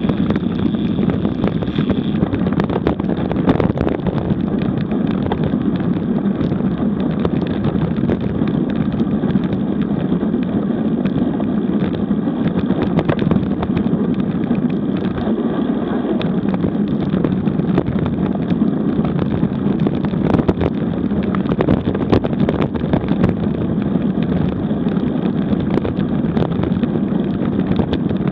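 Wind buffeting a bike-mounted camera's microphone while riding a road bike at about 30 km/h, a steady loud rush. Under it, tyre rumble and small knocks come from rolling over cracked, patched asphalt.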